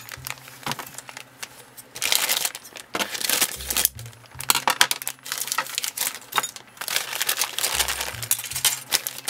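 A clear plastic polybag holding plastic model kit parts trees crinkling as it is handled and turned over, in irregular spells, with small clinks of the plastic parts shifting inside.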